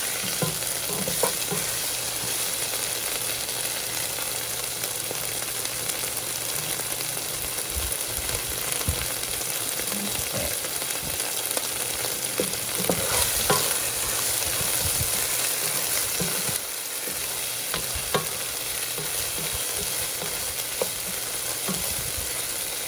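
Chopped red onion and crushed garlic sizzling in hot olive oil in a pot, a steady frying hiss with occasional short clicks as the pan is stirred.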